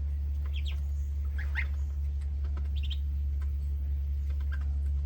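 Muscovy ducklings and a gosling peeping with short, rising chirps, several scattered through, over a steady low hum.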